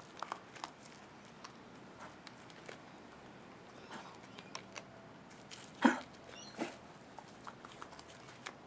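A Cavalier King Charles Spaniel puppy and a rabbit chewing leafy vegetables: soft, scattered crunches and leaf rustles. One much louder sharp crunch comes about six seconds in, and a smaller one follows shortly after.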